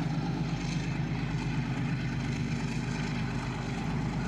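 Diesel freight locomotive engine running steadily while hauling a double-stack container train, a continuous low drone.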